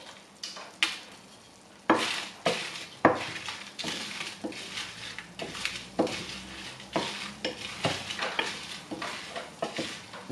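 A wooden spatula stirring whole spices and dried red chillies as they dry-roast in a frying pan with a little oil. Seeds and spatula make irregular scrapes and clicks against the pan over a light sizzle, with the steady stirring starting about two seconds in.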